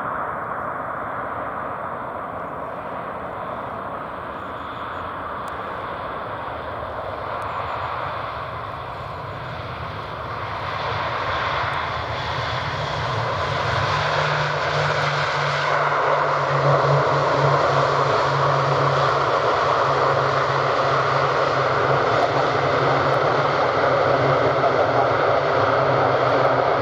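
Lockheed C-130T Hercules on its landing approach, its four Allison T56 turboprop engines running with a steady low propeller drone. The sound grows louder through the second half as the aircraft comes closer.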